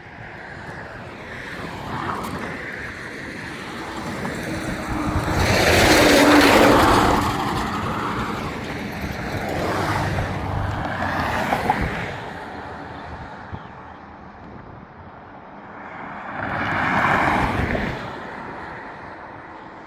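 Road traffic: vehicles passing by one after another, each rising and fading away. The loudest passes come about six seconds in and again a few seconds before the end.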